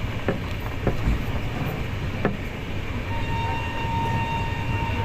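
Train running on the rails: a steady low rumble with a few sharp clicks of the wheels. A thin steady whine comes in about three seconds in and holds.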